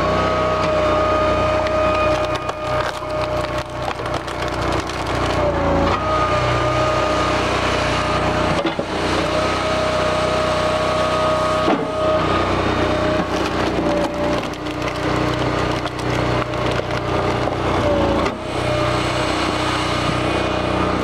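Engine-driven firewood processor running steadily while its splitter forces log rounds through the wedge, with wood cracking and splintering as the pieces split. The engine's pitch sags briefly three times, roughly every six seconds.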